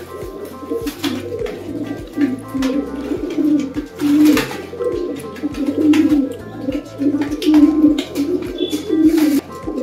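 Domestic pigeons cooing over and over, with background music and its steady bass line underneath.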